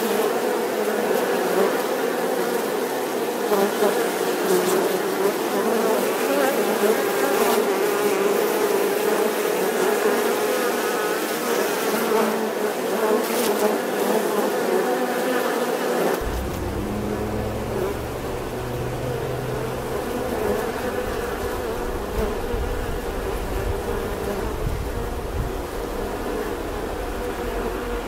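Many honeybees buzzing in flight, a dense steady drone. About halfway through the sound changes: the higher part thins and a low rumble comes in underneath the buzz.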